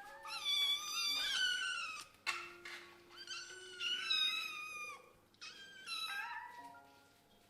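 Several kittens meowing over one another in high, rising and falling cries, in three bouts, then fading near the end: hungry kittens crying for food.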